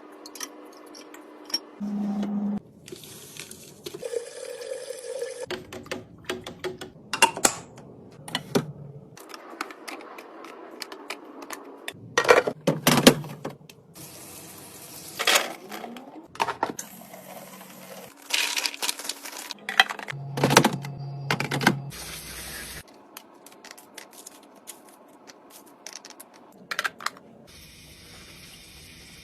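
Food containers and bottles being handled and set down while a fridge is restocked: a run of irregular clicks, knocks and clinks, with short noisy stretches in between. The background shifts abruptly every few seconds where short clips are cut together.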